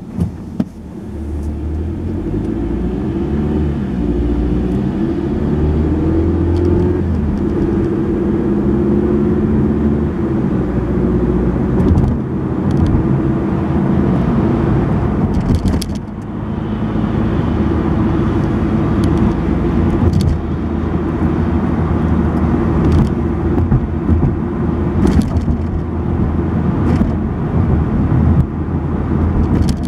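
Car engine and road noise heard from inside the cabin, growing louder in the first few seconds as the car pulls away from a stop, then steady tyre and engine noise while cruising. Occasional short knocks come from bumps in the road surface.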